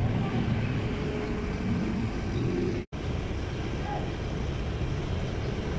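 Steady outdoor street ambience with a low rumble of traffic. The sound cuts out for an instant about three seconds in.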